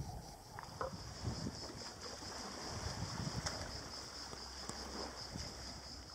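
Shallow seawater lapping and sloshing at a rocky shore. Over it runs a steady, high, pulsing buzz of cicadas.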